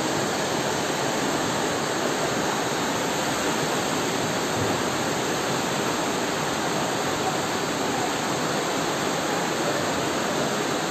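Flash-flood water rushing down a flooded town street, a loud, steady, unbroken rush from a river that has burst its banks.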